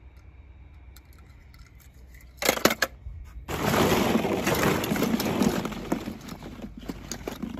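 Hollow plastic play balls clattering and knocking against each other as a hand rummages through a ball pit. A few sharp clicks come first, then a dense rattling about three and a half seconds in that slowly dies down.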